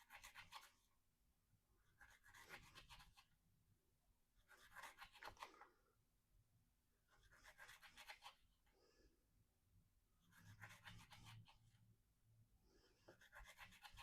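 Steel knife blade worked in slow, even strokes, six scratchy passes about every two and a half seconds, each a gritty rasp lasting about a second.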